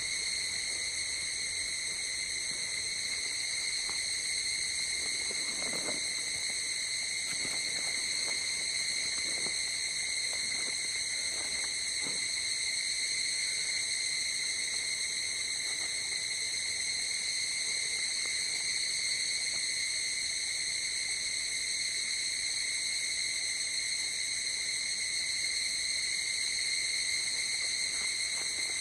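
Steady high-pitched chorus of night insects, a continuous ringing trill that never breaks. A few faint, soft, short sounds lie lower down between about five and twelve seconds in.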